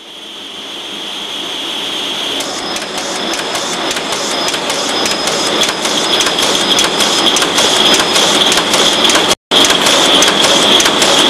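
Pilfer-proof cap making machinery running: a steady mechanical clatter of rapid ticks over a constant high whine. It fades in at the start and cuts out for a split second about nine seconds in.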